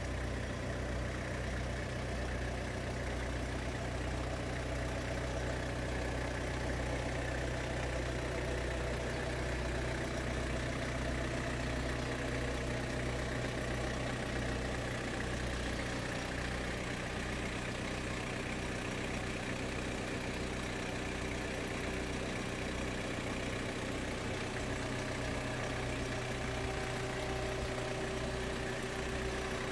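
Vehicle engine idling steadily, with an even low pulsing hum.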